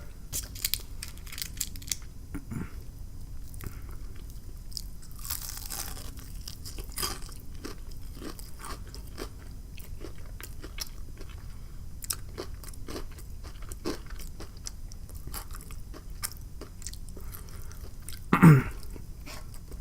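A person chewing and crunching food close to the microphone, with many small crackling, clicking mouth sounds.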